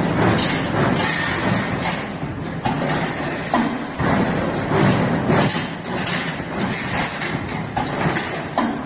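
Rebar processing machine running, with a steady mechanical din and repeated knocks and clanks of steel bar.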